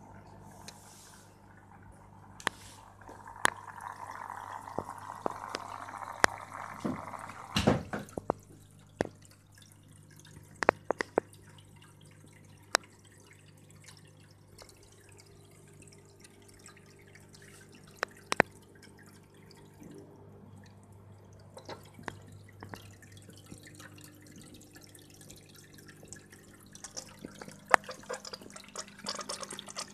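Water dripping and trickling into an aquarium: irregular sharp drips, with a louder spell of running water a few seconds in, over a steady low hum.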